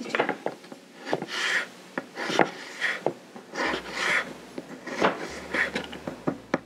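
Kitchen knife slicing dried, sweetened ginger on a wooden cutting board: a run of short cuts, about two a second, with light taps of the blade on the board.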